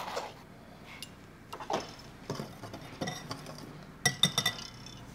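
Metal utensils clinking against a glass mixing bowl: a measuring spoon tapping and a wire whisk stirring flour and dry ingredients. Scattered light clinks, then a quick run of rattling clinks about four seconds in as the whisk works the bowl.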